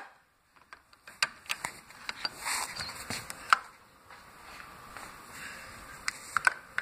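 Scattered sharp clicks and knocks with a brief rustle, as a door is handled and locked: the loudest knock is about three and a half seconds in, and a few quick clicks come near the end.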